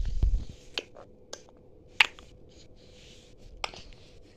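A few separate sharp clicks, the loudest about two seconds in, after a low thump at the start.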